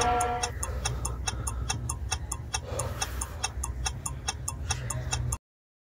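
Clock ticking fast and evenly over a low steady hum, cutting off suddenly near the end.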